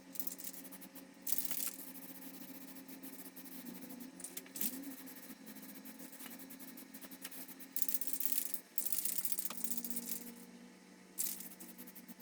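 Spray paint hissing in short bursts as the colour coat goes onto a Chrysler 318 V8 engine block, over a steady low hum.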